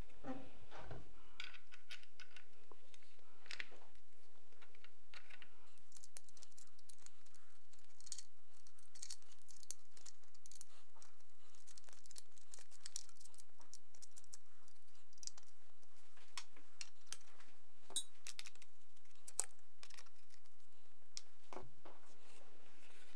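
Small metallic clicks and scrapes of a Klesch-2 flashlight and its B-16 rail mount being handled and fitted to a Vityaz-SN submachine gun's handguard, with two slightly sharper clicks about three quarters of the way in.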